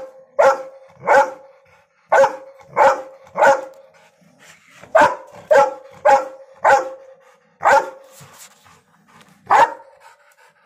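A large dog barking at a kitten: about a dozen sharp barks, mostly in quick runs of two to four about half a second apart, with short pauses between runs.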